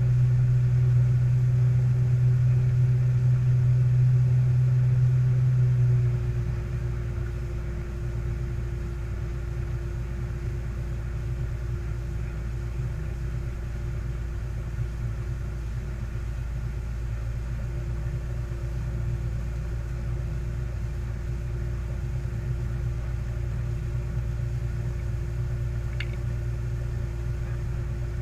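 Malibu Flightcraft towboat's inboard engine running steadily at speed under the rush of water spray from bare feet skimming the surface. The drone drops in level about six seconds in and then holds steady.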